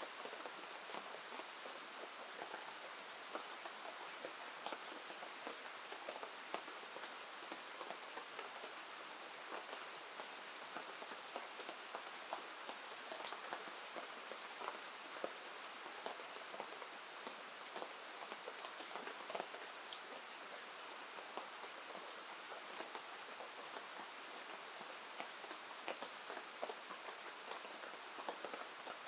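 Steady rain falling, a constant hiss dotted with many small, sharp drop clicks.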